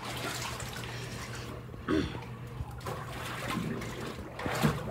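Pool water sloshing and lapping, with a couple of brief louder splashes, about two seconds in and near the end, as a swimmer moves about and ducks under the surface.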